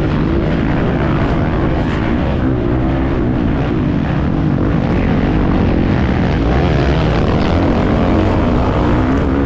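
Husqvarna FC350's 350cc four-stroke single-cylinder motocross engine running hard, its revs rising and falling continuously as it is ridden around the track.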